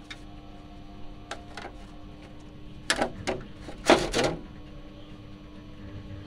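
Stainless steel rod and tools being handled on a workbench: scattered light clicks, then two bursts of sharp clatter about three and four seconds in, the second the loudest, over a steady low hum.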